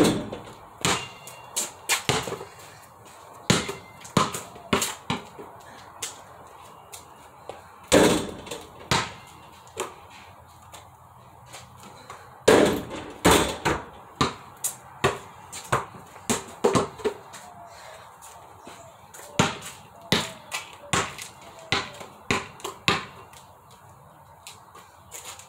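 A basketball banging off the backboard of a portable hoop and bouncing, over and over: a string of sharp thuds, some in quick runs of bounces that die away, the loudest hit right at the start.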